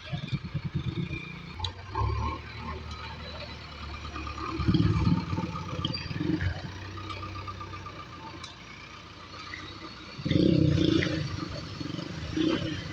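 Diesel engine of a JCB 3DX backhoe loader running, growing louder in surges about five seconds in and again after ten seconds.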